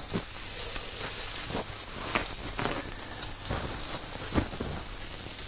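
Steak searing in oil in a frying pan: a steady sizzle, with a few faint ticks over it.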